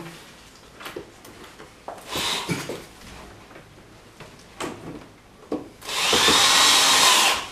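Cordless drill-driver driving screws into the wall: a short run about two seconds in, then a longer run of about a second and a half near the end, its whine rising and then falling. A few light knocks of handling come in between.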